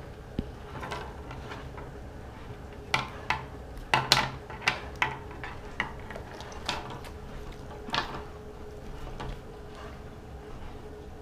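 Irregular sharp taps, knocks and clatters, about a dozen starting a few seconds in and stopping after about five seconds, from a kitten and a German Shepherd scuffling at a wooden table top.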